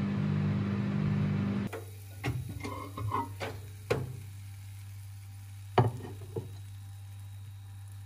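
Gorenje microwave oven running with a low hum and whir, which drops off sharply about two seconds in. After that comes a steady low hum and a few light clinks and taps of a plate, the sharpest about six seconds in.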